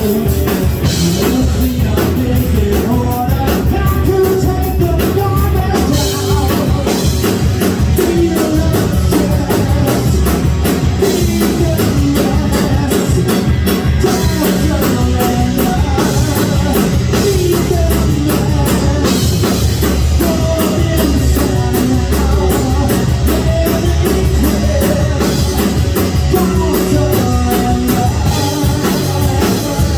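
Live rock band playing at full volume: a singer over guitar and a drum kit.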